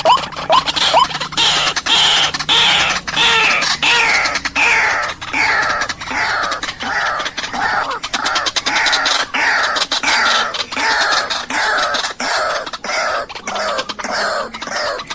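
White-breasted waterhen (ruak-ruak) calling: a steady run of repeated downward-sliding croaking notes, about two a second, with calls overlapping one another.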